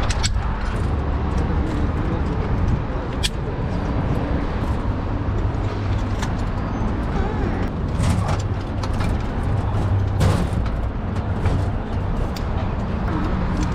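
Steady low outdoor rumble of city noise, with a few sharp clicks scattered through it.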